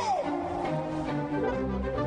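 Background film music: a melodic line of stepping notes, with a deep bass coming in about one and a half seconds in.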